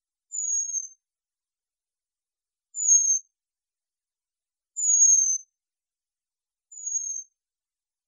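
Sumba brown flycatcher (Muscicapa segregata) giving high, thin whistled calls, four in all, each about half a second long and falling slightly in pitch, spaced about two seconds apart.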